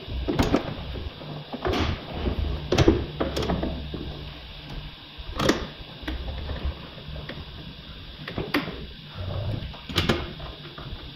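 Sharp knocks and clatter from work inside a VW Polo 9N3's stripped rear door, as hands and parts bump the bare sheet-metal inner panel. There are about seven knocks, irregularly spaced.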